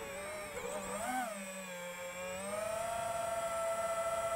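Skyeliner HD FPV drone's electric motors and propellers spinning up for takeoff: a whine whose pitch rises and wavers with the throttle, then climbs again about halfway through and holds steady.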